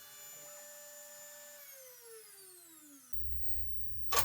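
CNC router motor running with a steady high whine, then falling in pitch as it spins down when the roughing pass ends. After about three seconds it gives way to a low hum, with a sharp click near the end.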